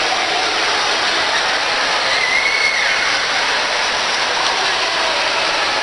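Steady din of a busy shopping-mall hall: crowd murmur and hiss at an even level, with faint voices in the background.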